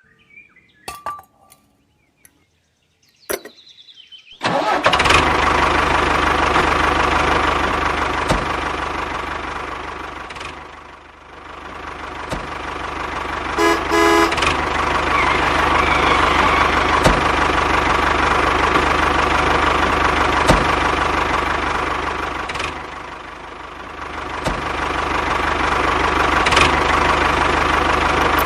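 A small electric motor switches on suddenly about four seconds in and runs steadily with a whine and hum, twice dropping briefly in level. A short pitched beep sounds about ten seconds after it starts.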